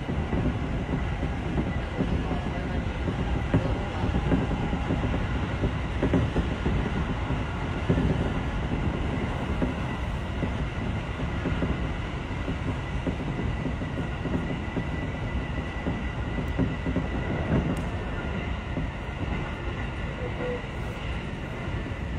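Tobu Railway electric train running steadily along the track, heard from inside the driver's cab: a continuous rumble of wheels on rail with a faint steady high tone and a few knocks.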